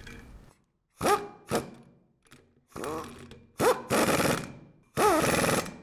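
Bolts on the pilot piston valve housing of a Kimray glycol pump being tightened down with a socket wrench: about six short metal squeaking, scraping strokes with brief pauses between them.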